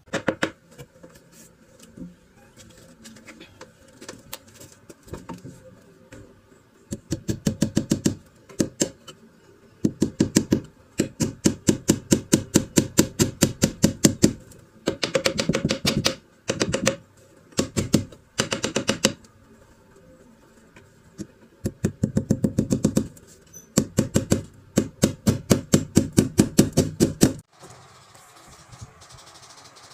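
Hammer blows on a wooden cabinet frame: rapid strikes about five a second, in bursts of one to four seconds with short pauses, stopping shortly before the end.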